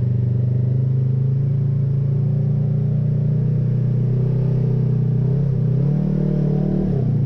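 Polaris RZR side-by-side engine running at a steady speed under the driver, heard from inside the cab. It revs up a little over five seconds in, holds higher for a moment, then drops back just before the end.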